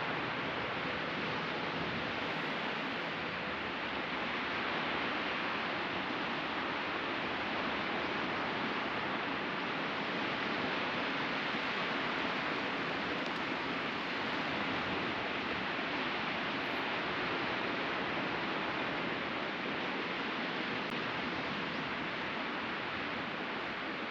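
Ocean surf washing steadily onto a beach: a continuous hiss of breaking waves that swells and eases only gently.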